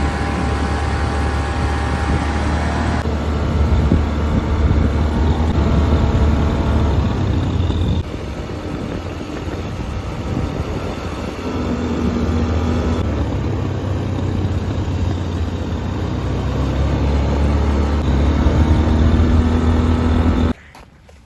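Engine rumble heard from on board a moving vehicle, steady and low, changing abruptly a few times between short clips.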